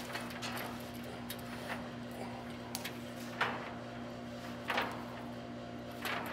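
Stiff .750 metal-sheathed coax cable being bent and handled: a series of short scrapes and rubbing sounds, a few seconds apart, over a steady low hum.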